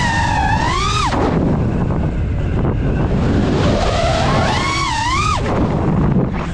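FPV quadcopter's electric motors whining, the pitch rising and falling with the throttle in two bursts (about the first second, then again around four to five seconds in). Underneath runs a loud, constant rush of wind on the drone's onboard microphone.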